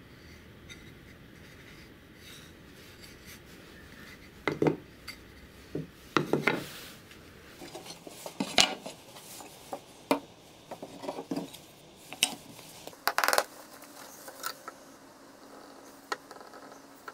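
Irregular hard knocks and clatters of wooden pieces and a glass sheet being handled and set down on a wooden workbench, starting a few seconds in, with light rubbing between knocks.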